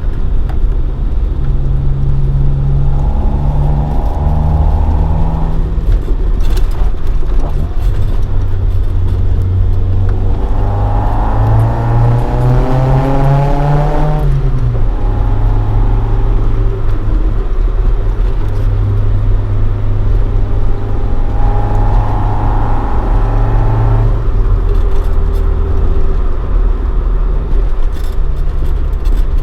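Toyota AE86 Sprinter Trueno with a swapped AE111 20-valve 4A-GE engine on individual throttle bodies and a Fujitsubo Legalis R exhaust, driving. The engine pulls steadily, its revs climb for a few seconds about ten seconds in, drop sharply at a gear change, and settle back to cruising.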